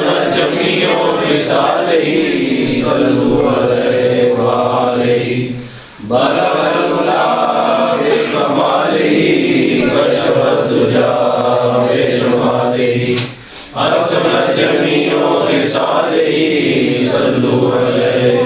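Men's voices chanting together in long repeated phrases of about seven seconds each, with two short breaks for breath between phrases.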